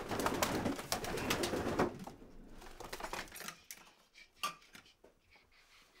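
Pigeon cooing and stirring close by, loudest over the first two seconds, then a few quieter clicks and knocks.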